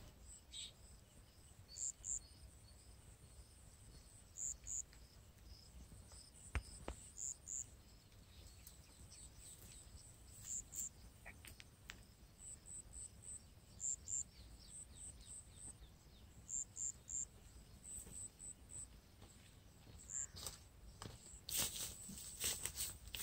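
Faint high-pitched chirping in short groups of two or three, repeating every second or so, over a low outdoor rumble. Near the end, footsteps swish through tall grass close by.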